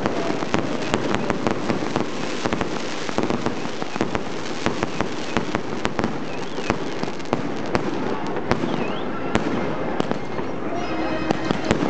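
Shower of burning sparks crackling and fizzing, a steady dense run of sharp little pops.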